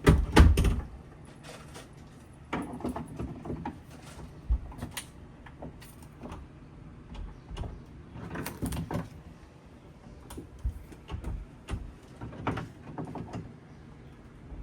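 Irregular knocks and clattering of tools and materials being handled during wall repair work, loudest in the first second, with quieter knocks scattered after.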